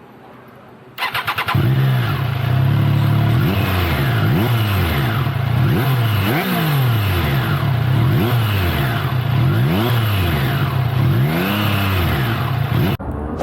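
Triumph Trident 660's inline three-cylinder engine cranked on the starter and catching about a second and a half in, then revved again and again, the pitch climbing and falling with each blip of the throttle.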